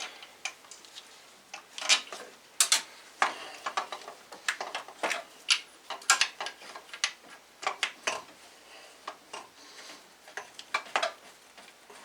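Irregular metallic clicks and clinks of hand tools and steel bolts being handled while fitting an alternator's large mounting bolts.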